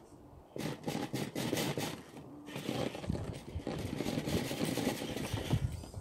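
Amewi Spirit radio-controlled rock crawler's motor and gearbox whirring in stop-start bursts as its tyres scrabble and scrape against a box-shaped trial obstacle. It starts about half a second in, pauses briefly around two seconds, then runs on more steadily.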